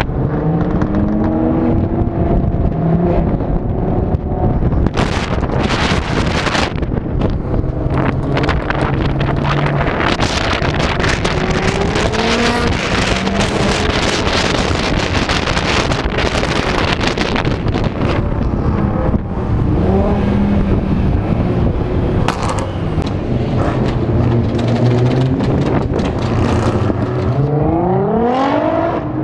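Audi TT RS's turbocharged five-cylinder engine pulling hard, its pitch rising through the revs several times and climbing steeply near the end, with wind buffeting the bonnet-mounted microphone.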